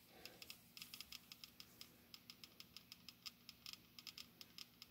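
Faint, rapid, evenly spaced clicking, about four to five clicks a second, from the audio indicator of a TriField TF2 EMF meter.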